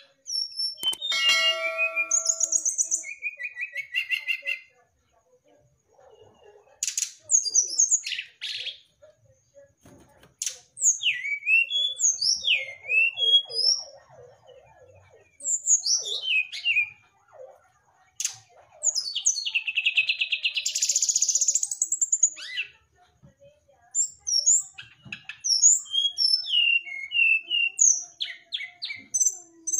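Brown-chested jungle flycatcher singing in phrases of a few seconds with short pauses between, mixing high sliding whistles and quick trills, with a longer buzzy, chattering phrase about two-thirds of the way through.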